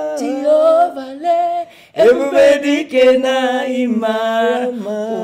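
Gospel song with voices singing long held notes, breaking off briefly about two seconds in before the singing resumes.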